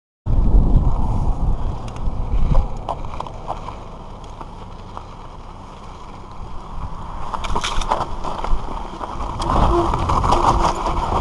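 Giant Reign mountain bike riding down a rough dirt trail: tyres grinding over dirt and stones, with rattles and sharp knocks from the bike over bumps and a low rumble of wind on the microphone. It is louder at the start and again in the second half, quieter in between.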